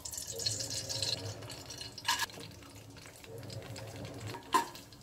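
Melted ghee pouring into an empty aluminium pressure cooker with a soft liquid hiss. Then come short sharp knocks, about two seconds in and again near the end, as sliced cashews and almonds are tipped into the pot.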